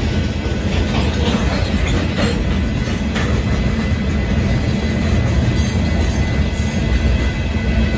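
Freight train of covered hopper cars rolling past close by: a loud, steady rumble of steel wheels on rail with a few clicks over the joints and a thin, steady high wheel squeal.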